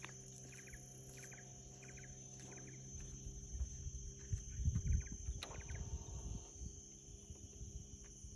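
Faint outdoor ambience: a small animal chirping in short repeated trills, about two groups a second, with a low rumbling noise in the middle.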